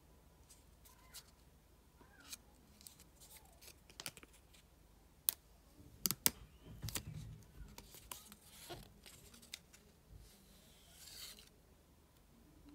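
Thin plastic protective film being peeled and crinkled off an AirPods Pro charging case: scattered sharp crackles and clicks, thickest around the middle, with a longer tearing rustle about ten seconds in.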